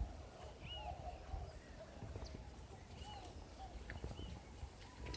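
Birds calling: short arched notes, repeated again and again, some higher and thinner, over a low rumble.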